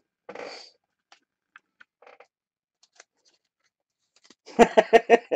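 Trading cards being handled: a brief rustle, then scattered small faint clicks and ticks. Near the end a loud, pulsing burst of a man's voice.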